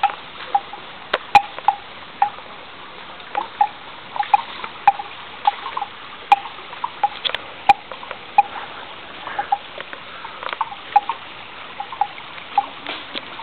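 Water dripping and plinking irregularly, two or three small drops a second, over a steady hiss.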